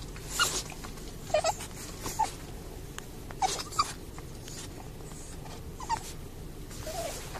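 Cavalier King Charles spaniel whimpering in a string of short, high whines, several seconds apart, over a low steady background hum: the anxious whining of a dog that does not want to be at the vet.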